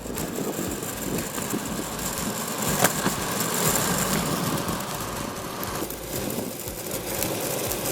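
Longboard rolling along with a steady rumble from its wheels, and a light rattle from a loose bearing spacer inside a wheel, which has a millimetre or less of play between the two bearings. One sharp click a little under three seconds in.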